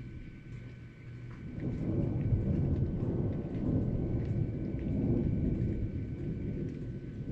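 Thunder rumbling over steady rain. The low rumble swells about a second and a half in and rolls on with two peaks, easing slightly near the end.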